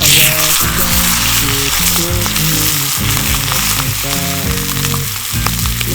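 Beef steak sizzling in a hot iron frying pan over a campfire. The sizzle comes in suddenly and loudest at the start, then holds steady.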